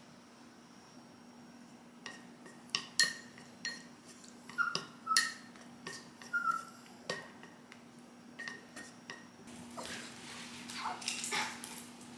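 Dishes and utensils clinking and knocking in a string of light, separate strikes, some ringing briefly. Near the end the strikes give way to a denser rustling, scraping noise, over a faint steady low hum.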